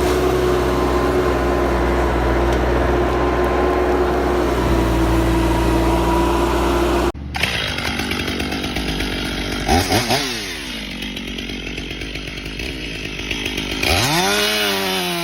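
A small engine drones at a steady pitch for about seven seconds, then cuts off abruptly to a chainsaw being revved, its pitch swooping up and down twice.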